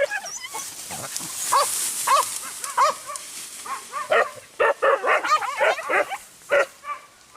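Hunting dogs barking in quick succession: a few barks at first, then a dense run of barks about four seconds in.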